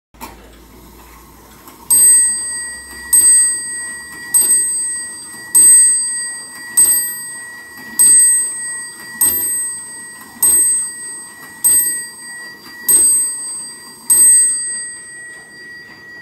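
Westerstrand gilded Swedish wall clock striking the hour: eleven ringing metallic strikes about 1.2 seconds apart, each dying away before the next, for eleven o'clock.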